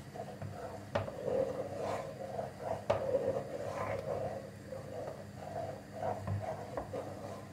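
A spoon stirring thick cornstarch-and-milk custard cream in a metal pot, with a continual scraping and sloshing and two sharp knocks against the pot, about a second and about three seconds in. The cream is thickening on the heat and is being kept moving so it doesn't stick to the bottom.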